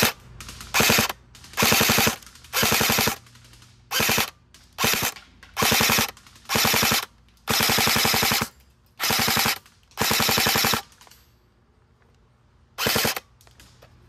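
Airsoft SCAR-L electric gearbox firing about a dozen short full-auto bursts of rapid mechanical clacking, each from a fraction of a second to about a second long, with a pause near the end before one last burst. It runs on a stock motor and 7.4 V LiPo that the owner calls sluggish and slow.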